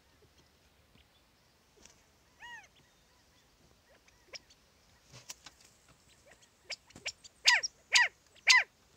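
Quail calling: a single call about two and a half seconds in, then three loud, sharp calls about half a second apart near the end, each dropping in pitch.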